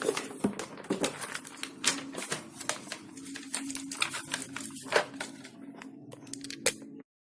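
Irregular crinkling and clicking of crinkly material being handled, over a faint steady low hum; the sound cuts off abruptly near the end.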